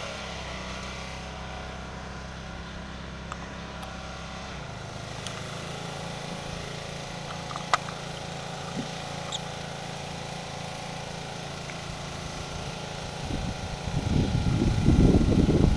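Steady drone of a distant small engine; its deep low hum drops away after about four and a half seconds, leaving a fainter steady hum. A single sharp click comes about halfway through, and a louder, uneven low rumble sets in near the end.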